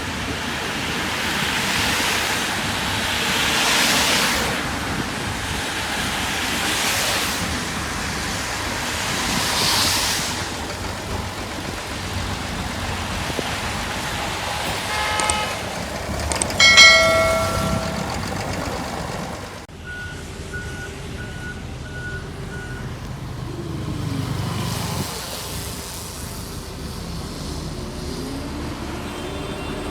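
Road traffic passing, vehicles swelling and fading one after another, with a vehicle horn honking about halfway through. After an abrupt change, a run of short, evenly spaced high beeps sounds over a low engine hum.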